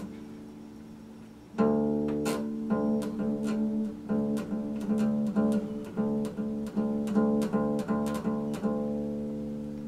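Epiphone acoustic guitar: a note rings and fades, then about a second and a half in the strings are plucked repeatedly, about three times a second, at a steady pitch. This is checking the pitch while retuning the low E string down to D for drop D tuning.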